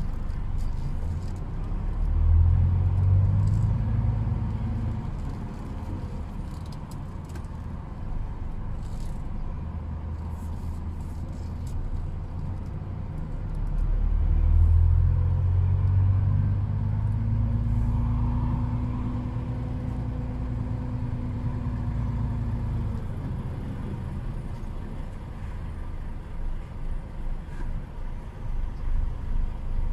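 Truck's diesel engine heard from inside the cab, pulling away and accelerating, its low running note swelling louder about two seconds in and again about fourteen seconds in.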